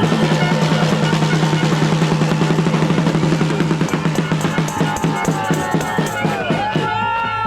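Drums beaten in a fast, steady roll of rapid strokes, which thin out and fade about two-thirds of the way through.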